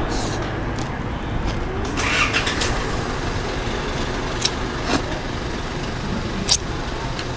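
Steady low rumble of nearby road traffic, with a short noisy slurp of noodles about two seconds in and a few sharp clicks.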